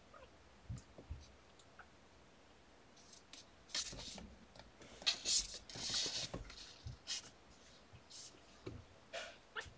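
Quiet scratching and rustling in scattered short bursts, busiest about four to seven seconds in.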